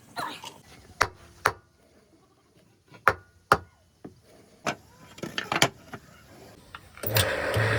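Sharp knocks of a tool striking wood, mostly in pairs about half a second apart, as the wood is carved. Near the end a power tool starts up with a steady hum and the grinding noise of it working the wood.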